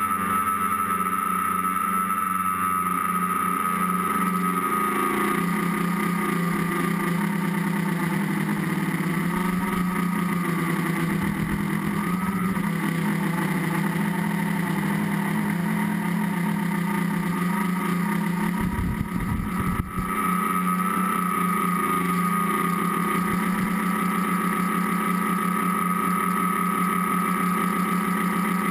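Tricopter's three electric motors and propellers, heard from the onboard camera, running in flight as a steady buzzing whine. The pitch wavers as the throttle changes, with a brief drop about two-thirds through.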